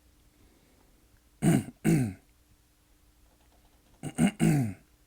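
A person clearing their throat loudly, in two bouts: a double rasp about a second and a half in, then a triple rasp near the end.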